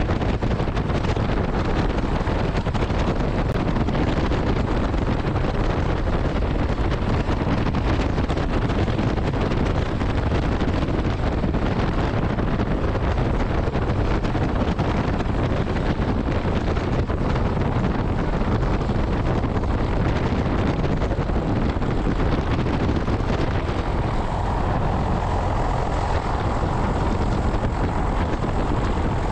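Small biplane's piston engine and propeller running steadily while the plane taxis, heard from beside the open cockpit.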